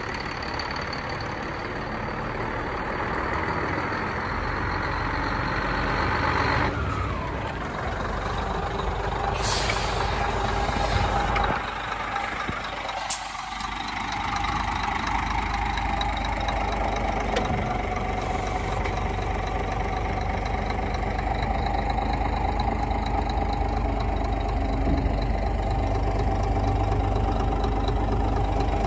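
Three-axle Scania cable hooklift truck's diesel engine running as the truck moves, then running steadily at idle, with a couple of short air hisses from its brakes about a third of the way in.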